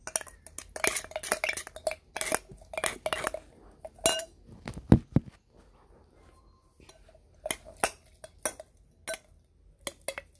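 A metal spoon clinking and scraping against a container while stirring glue into slime, in irregular bursts of quick taps, with one heavier knock about five seconds in.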